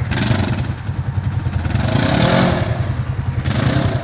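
Side-by-side UTV engine running with a steady low rumble, revved up and back down three times. Each rev brings a rushing hiss, as the machine tries to power out of a mud hole.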